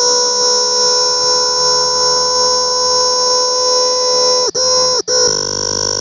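Cicada calling close up: a loud, steady, high-pitched buzzing song. It breaks off twice, briefly, near the end, then resumes.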